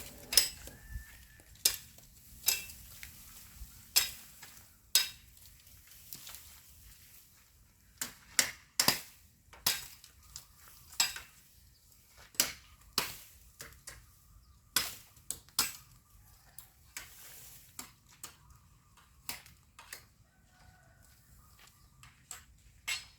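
Bamboo being chopped by hand with a blade: sharp, separate strokes at an uneven pace of roughly one or two a second, with short pauses between bursts.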